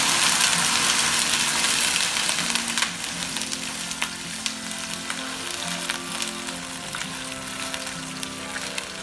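Water poured from a kettle into a hot stainless-steel wok of sautéed shallots, lemongrass and ginger, hissing loudly as it hits the hot oil. After about three seconds it settles to a quieter hiss with small crackles as the pour goes on.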